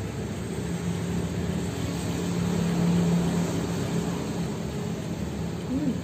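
Outdoor road traffic noise with a motor engine's drone that grows louder toward the middle and then fades, as a vehicle passes.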